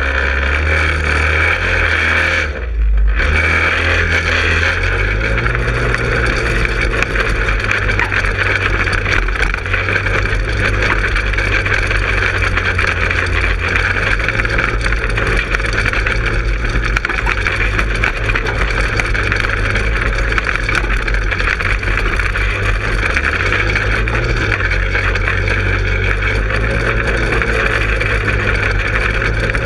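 Manco Helix 150 go-kart's engine running as the kart drives, heard from on board, its note rising and falling with the throttle, with a brief dip about two and a half seconds in.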